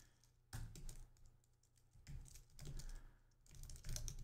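Typing on a computer keyboard: faint keystrokes in several short bursts.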